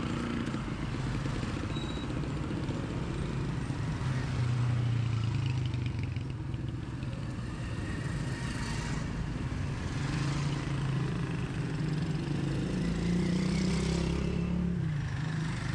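Busy street traffic: small vehicle engines running close by, swelling as one passes about four seconds in and again near the end, over a general street clatter.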